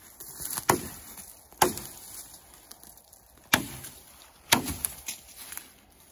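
Bushcraft axe chopping into wood: four sharp strikes at uneven intervals, each with a short ringing tail.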